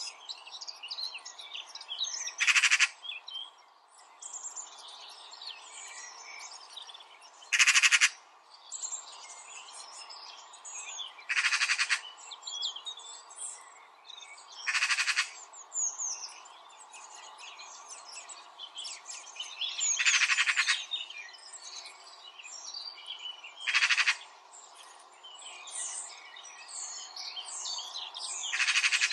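Many birds chirping, over a steady background hum of calls. A louder, buzzy call about half a second long repeats every three to five seconds.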